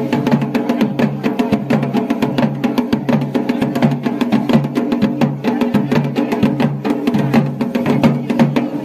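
Dhol drumming: fast, steady strokes with a low, pitched boom pulsing under the sharper hits.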